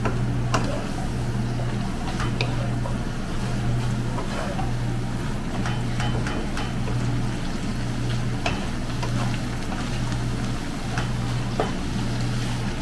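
Wooden spatula stirring stir-fry vegetables and meat in a hot nonstick wok, with scattered clicks and knocks of the spatula against the pan and a light sizzle. A steady low hum runs underneath throughout.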